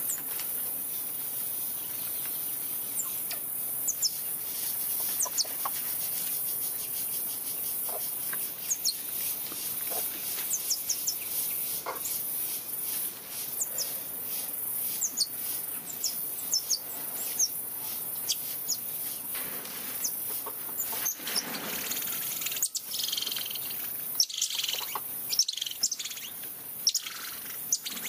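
Squirrel monkeys chirping: many short, high calls that slide down in pitch, over a steady high insect hiss. Several sharp knocks and rattles come in the last few seconds.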